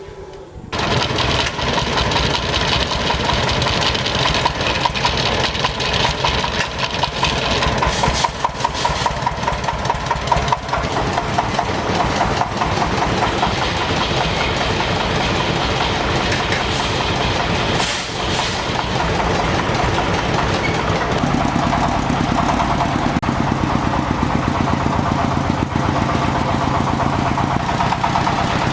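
A small engine starts abruptly and runs steadily with a rapid, even pulse; about two-thirds of the way through its note settles lower and smoother.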